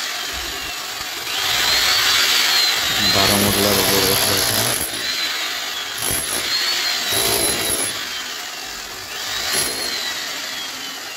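Angle grinder cutting a groove into a brick wall, grinding noise with a motor whine that rises and then sags in pitch several times as the disc bites into the brick.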